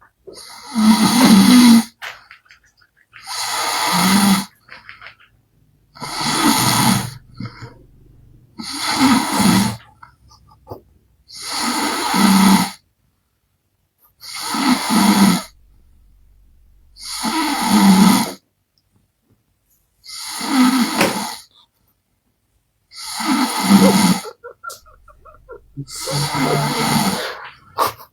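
A man snoring loudly in deep sleep, one long buzzing snore about every three seconds, about ten in all, loud like a bajaj auto-rickshaw's exhaust.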